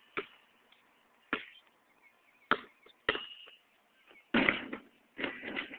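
A basketball bouncing on a concrete driveway, four sharp knocks spaced about a second apart, then a louder, longer rattle near the end as he goes up at the hoop.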